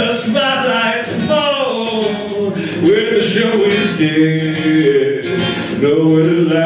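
A man singing a folk song live into a microphone, accompanying himself on acoustic guitar.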